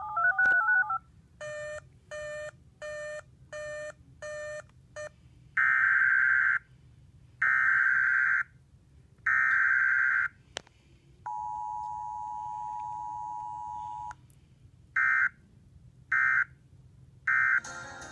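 Emergency Alert System tones from a second alert that fails. After a short run of stepping tones and six quick beeps come three one-second screeching SAME data header bursts. Then the two-tone attention signal starts and is cut off after only about three seconds, and three short end-of-message bursts follow at once. The header and attention signal break off into the end-of-message code: a botched, failed relay of the alert.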